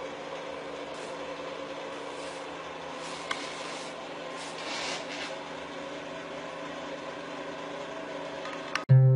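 Steady mechanical hum with a faint hiss, with one short click a little over three seconds in. Plucked harp music starts near the end.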